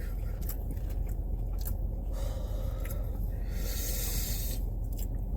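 Soft chewing and mouth sounds over a low steady hum, with a few faint ticks and a hiss lasting about a second a little past the middle.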